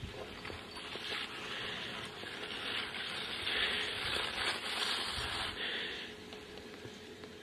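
Skis carving giant slalom turns on hard snow: a scraping hiss from the edges that swells through the middle and fades near the end.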